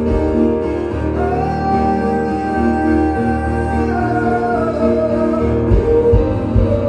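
Live music: keyboards play sustained chords while a voice holds long notes, one note held for a few seconds and then moving down and back up near the end.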